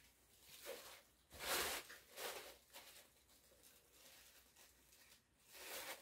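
Soft rustling of tissue paper and cloth as a baby onesie is handled: a few short rustles, the loudest about a second and a half in.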